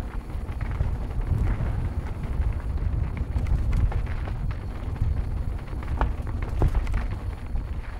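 Wind buffeting the microphone and tyre rumble from a mountain bike rolling fast down a dirt singletrack, with a couple of sharp clicks about six seconds in.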